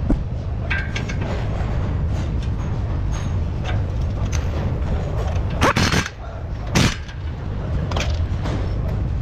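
Car-repair shop work noise: a steady low rumble, with two short, sharp bursts of tool noise about six and seven seconds in while an air tool is worked on a car's front suspension.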